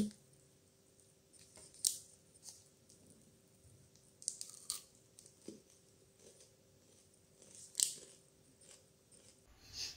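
Scattered short crunches and crinkles of a crisped-rice green-tea white-chocolate snack bar being bitten and chewed, with its plastic wrapper being handled; the loudest come about two seconds in and near the end.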